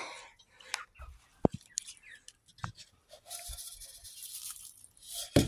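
Clear plastic bag crinkling and rustling while crushed oats and herbs are shaken onto the feed in a plastic chick feeder, over a few light clicks and knocks of the plastic feeder being handled. A dry rustle runs for about two seconds from about three seconds in, and a sharp knock comes near the end.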